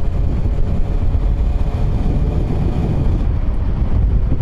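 Yamaha FZ1 motorcycle riding at a steady cruising speed: a heavy wind rumble on the microphone over the engine's steady drone, with no change in revs.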